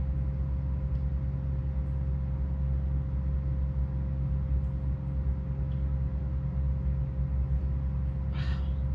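Steady low background hum with a faint constant tone above it, and a brief hiss near the end.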